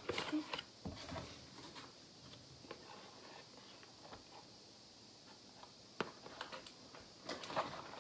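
Packaging and small items being handled: scattered light rustles and clicks, busiest in the first second and again near the end, with one sharp click about six seconds in.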